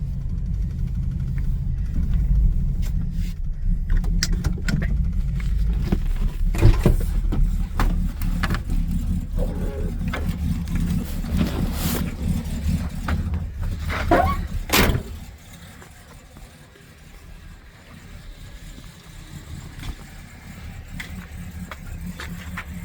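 Dodge Charger's 318 V8 idling cold, still warming up after sitting for a couple of months, with several knocks and clatters over the idle. About fifteen seconds in, after a loud knock, the engine sound becomes much quieter.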